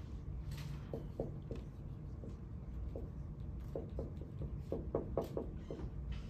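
Writing on a board during a lecture: a series of short, scratchy strokes in bursts, busiest a little after the middle, over a steady low room hum.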